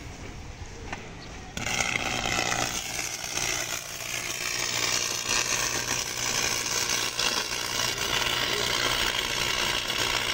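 Electric arc welding along a steel keel shoe: the arc strikes about a second and a half in, then crackles and sizzles steadily over a faint low hum.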